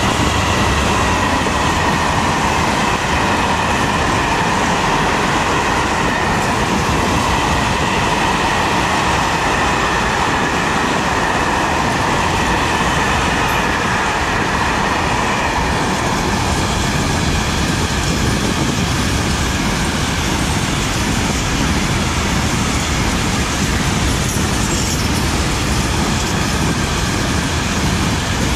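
A long freight train of covered hopper wagons rolling past close by behind a Class 66 diesel locomotive: a steady, loud rumble and clatter of wheels on rail. A high whine slowly drops in pitch and fades over the first half.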